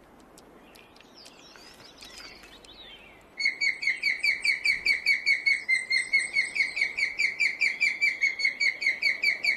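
Osprey calling: a rapid, evenly spaced series of short, sharp whistled chirps, about five or six a second, that starts abruptly about three and a half seconds in and keeps going.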